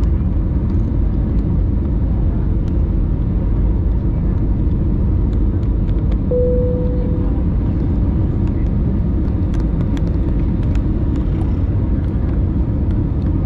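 Steady cabin noise inside an easyJet Airbus A320-family airliner on descent: engine and airflow noise, heaviest in the low end. About six seconds in, a short single tone sounds and fades within a second.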